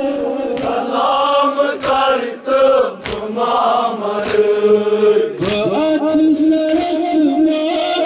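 A group of men chanting a Shia mourning lament (nauha) together in a steady, wavering chant. Sharp slaps of hands beating on chests (matam) cut through it a few times.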